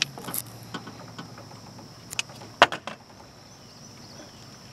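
A few sharp knocks and clatters against an aluminium jon boat as a freshly landed catfish is unhooked on its floor. The loudest knock comes a little past halfway, in a quick cluster of three.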